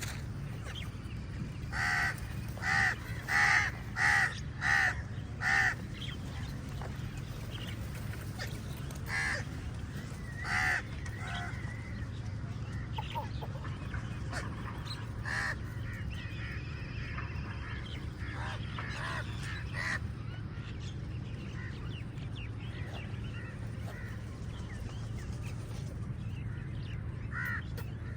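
Crows cawing: a run of six loud, harsh caws about two seconds in, then two more a few seconds later and scattered fainter calls, over a steady low rumble.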